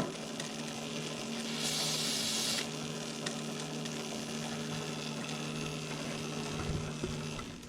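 Highboy DK1 electric dirt bike's motor running under light throttle, a steady hum, with the chain drive turning the rear wheel on the stand. About a second and a half in, a one-second hiss of chain lube being sprayed onto the moving chain.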